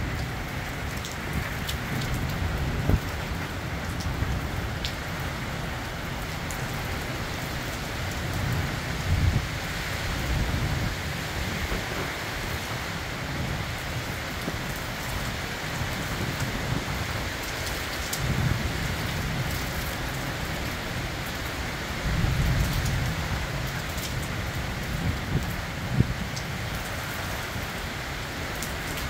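Steady rain falling on the town's roofs and streets, a continuous hiss with sharp drips ticking close by now and then. A few low rumbles swell and fade, the loudest a little after the middle.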